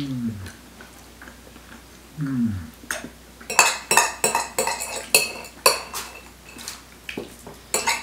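Metal forks clinking and scraping on ceramic plates, a quick run of sharp clinks from about three and a half seconds in. Before that, two short falling hums from a person.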